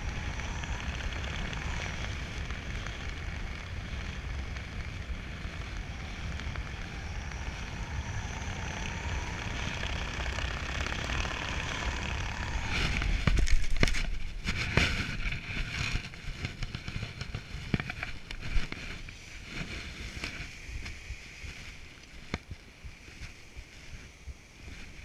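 Wind rushing over a helmet camera's microphone during parachute canopy flight on final approach. About thirteen seconds in come loud buffeting, thumps and scraping as the skydiver touches down on the grass, then softer intermittent rustling as the canopy settles.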